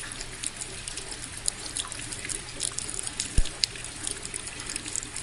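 Indoor tabletop waterfall fountain: water trickling and splashing steadily, with many small drips ticking. One low thump about three and a half seconds in.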